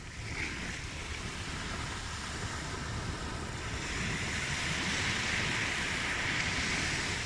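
Ocean surf: waves washing in as a steady rushing hiss, with one wave swelling louder from about halfway through.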